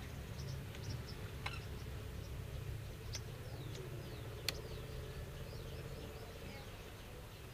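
Small birds chirping repeatedly in short downward-sweeping notes, over a steady low rumble. A few sharp clicks of plastic toy bricks being pressed together stand out, the loudest about four and a half seconds in.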